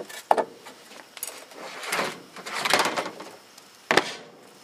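Plastic cooler lid being fitted and pressed down by hand: clicks, then scraping and rustling. A sharp knock just before four seconds in as a rock is set down on top of the lid.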